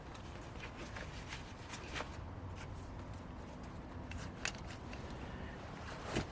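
Scattered light clicks and rustles of small objects being handled, over a steady low rumble.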